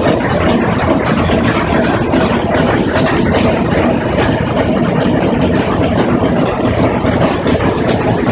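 The TSS Earnslaw's coal-fired triple-expansion steam engines running, a loud, steady mechanical clatter and thrum heard close up in the engine room.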